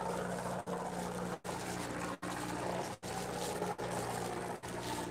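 A fishing boat's engine drones steadily with a wash of water and air noise, broken by brief gaps about every 0.8 seconds.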